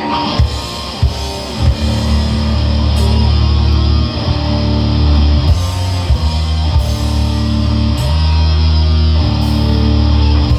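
Heavy metal band playing: distorted electric guitars and bass on low held chords over a drum kit, the full band coming in with a loud hit at the start.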